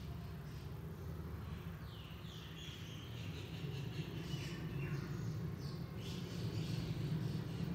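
Birds chirping: a run of short, falling high calls from about two seconds in until near the end, over a steady low hum.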